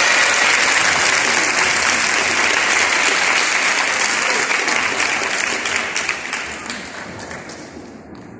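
Audience applauding in a sports hall, the clapping tapering off over the last few seconds.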